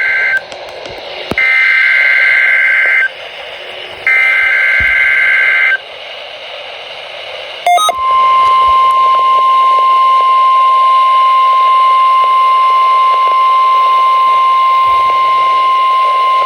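NOAA Weather Radio required weekly test signal played through a weather radio receiver. The tail of one SAME digital header burst is followed by two more identical bursts of warbling two-tone data, each about a second and a half long with short gaps between them. From about eight seconds in, the steady 1050 Hz warning alarm tone sounds.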